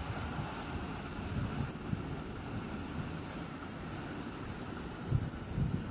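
JR West 223 series 2000 electric multiple unit approaching, its wheels rumbling and clattering irregularly over rail joints and points.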